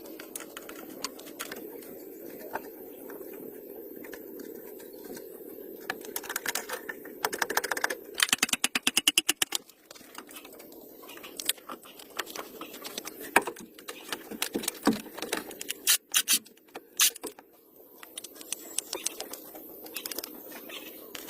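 Hand tools at work on an old jeep: scattered metallic clicks and knocks, with a rapid run of even ticks lasting about a second and a half, a third of the way in.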